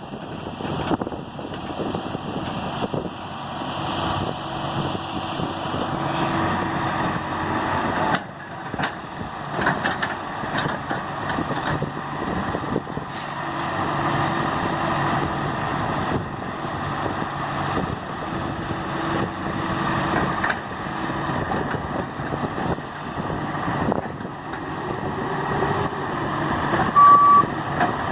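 John Deere 595D excavator's diesel engine running under working load, its noise rising and falling unevenly. A single short high beep sounds near the end.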